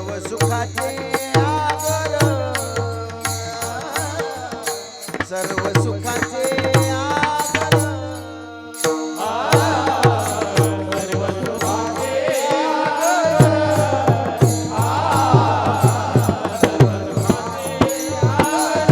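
Devotional kirtan music: a hand drum beating a steady rhythm with small hand cymbals clashing throughout under a melody. From about halfway, voices join in singing.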